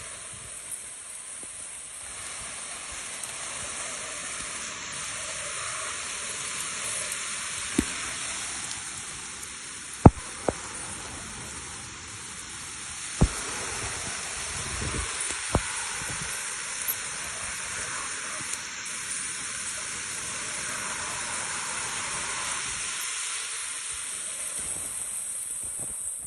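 Steady hiss of rushing floodwater, broken by a few sharp clicks or knocks.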